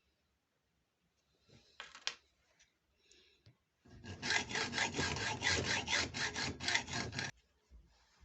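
Quick back-and-forth abrasive rubbing strokes by hand, about five a second for some three seconds, stopping suddenly; a short scrape and a few light knocks come before.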